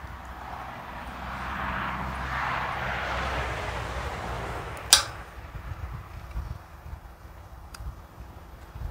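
Wind rumbling on the microphone over outdoor noise that swells and fades over a few seconds. About five seconds in comes a single sharp clink of a metal fork against a plate during eating, and a fainter click follows near the end.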